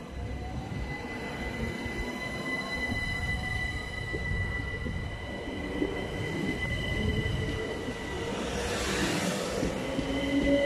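Southern Class 377 Electrostar electric train moving past along the platform, with wheel and track rumble and a steady high squeal. Near the end the traction motor whine climbs steadily in pitch as the train accelerates, and a short hiss comes about nine seconds in.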